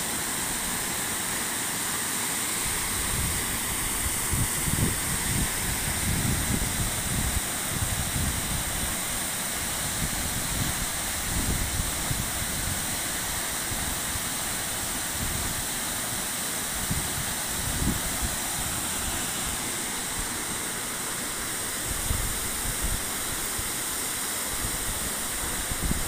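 Steady rushing of a waterfall, about 30 metres high, pouring into its plunge pool. An irregular low rumble comes and goes over it, most of all in the first half.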